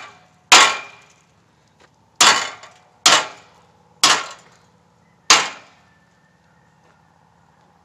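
A hammer striking a metal hay-ring panel: five sharp metal blows, each ringing briefly. The first comes about half a second in and the other four come roughly a second apart between about two and five and a half seconds in.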